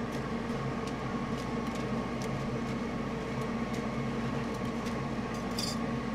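Steady hum of food-stall machinery, with a few light clicks and scrapes as a wooden stick stirs thick batter in a steel basin. A short hiss comes near the end.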